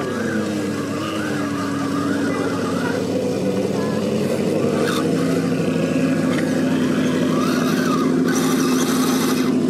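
HG P407 1/10-scale RC crawler's electric motor and gearbox whining as it drives, the pitch falling and rising with the throttle.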